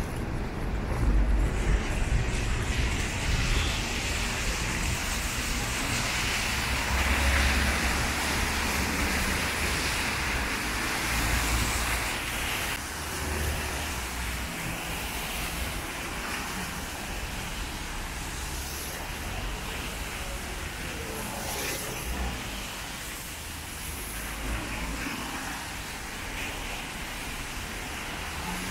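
Cars passing on a rain-soaked city street: tyres hissing on the wet road over a low engine rumble, with steady heavy rain. The hiss is louder in the first half and eases off about twelve seconds in.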